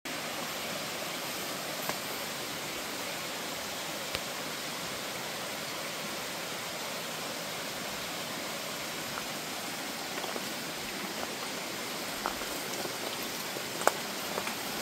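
Steady rush of running stream water, with a few sharp clicks here and there, the loudest near the end.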